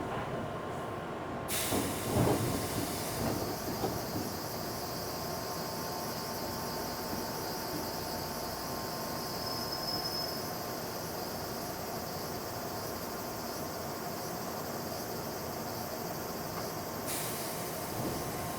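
Interior of an Odakyu 1000 series electric train car: a steady hum with a faint steady tone, and a few knocks about two seconds in. A high hiss from the car's air conditioning switches on about a second and a half in and cuts off sharply near the end.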